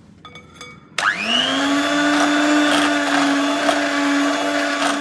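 Geepas electric hand mixer beating an egg into creamed butter and sugar in a glass bowl. A few light clicks, then about a second in the motor starts with a quickly rising whine and runs at a steady pitch as the beaters whisk the batter.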